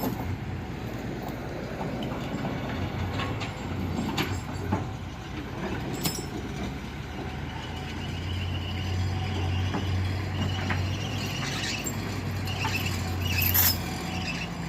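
Truck engine running steadily, a low hum that grows stronger from about eight seconds in, with a few metallic knocks along the way.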